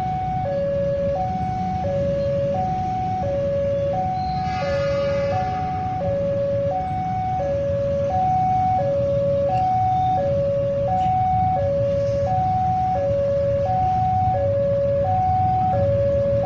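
Railway level-crossing warning alarm sounding a two-tone electronic signal, a high and a low tone alternating about once every 1.4 seconds: the signal that a train is approaching and the barrier is down. Under it runs a low steady rumble of idling engines, with a brief horn about four and a half seconds in.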